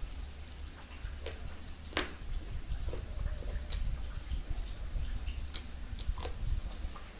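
Close-miked chewing and mouth sounds of a person eating, with a few sharp wet smacks or clicks every second or two over a low steady rumble.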